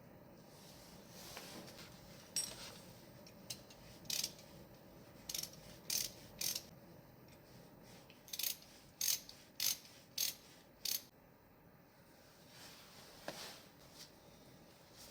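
Sharp metallic clicks and clinks from small metal parts and hand tools being handled during brake pad and pin work on a motorcycle's front brake caliper. There are about a dozen, irregularly spaced, most of them between a couple of seconds in and about eleven seconds in.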